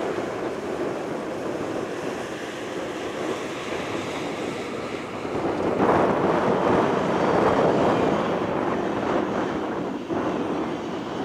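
Wind buffeting the microphone, a rushing noise that grows stronger about six seconds in.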